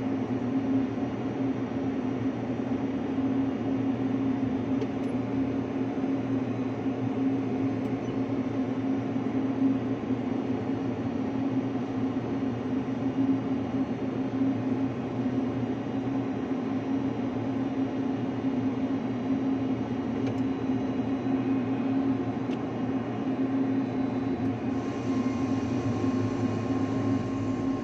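Steady ship's machinery drone with a strong, even low hum. Near the end a faint hiss joins in.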